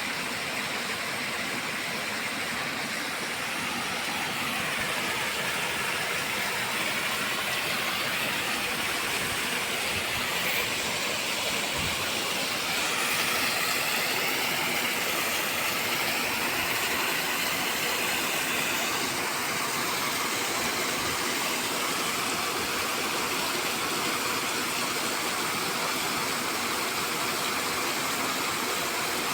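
Sea surf washing on a beach, a steady rushing noise with no clear rise and fall of separate waves.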